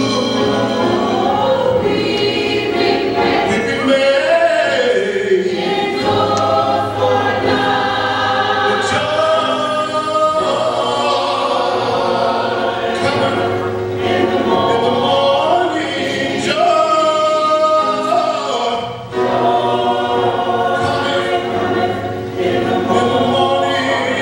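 Gospel choir singing, with a male lead singer on a handheld microphone and a steady low note sustained underneath.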